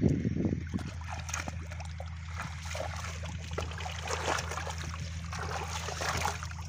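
Hands digging and stirring in shallow muddy water, making small irregular splashes and trickles that grow busier after the first second or so, over a steady low hum.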